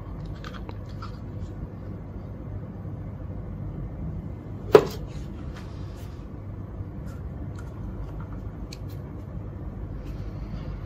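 An OBD-II plug pushed home into a GODIAG GT106 Plus adapter, one sharp plastic click about halfway through, with light handling ticks over a steady low hum.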